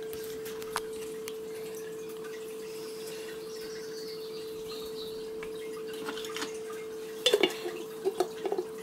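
A steady hum at one pitch throughout. About seven seconds in comes a short run of light knocks and clinks, from kitchen utensils being handled on the counter and baking tray.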